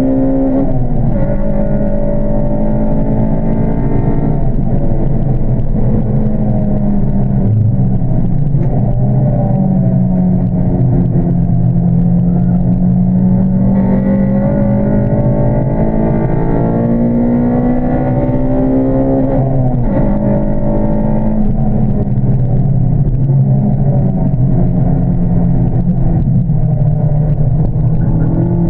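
EP3 Honda Civic's VTEC four-cylinder engine pulling hard through the gears on track. The pitch climbs steadily in each gear and drops sharply at each upshift, about six times.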